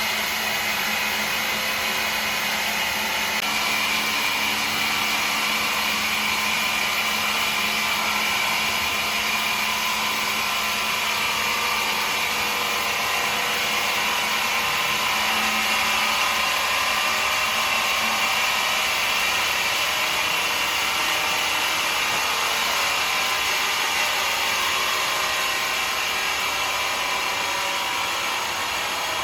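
A woodworking machine running steadily with a high whine and a low hum, the whine growing stronger about three to four seconds in.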